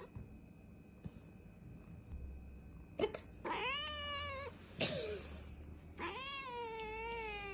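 A cat meowing twice: a call of about a second starting halfway through, then a longer meow with a wavering pitch near the end.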